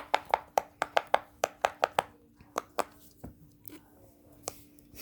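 Bubbles of a silicone pop-it fidget toy being pressed through one after another: a quick run of sharp pops, about five a second, that slows to a few scattered pops.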